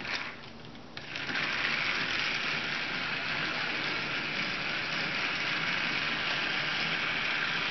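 Battery-powered Trackmaster Rebecca toy engine switched on with a click, then about a second in its motor and gears whir steadily as it hauls plastic wagons around plastic track.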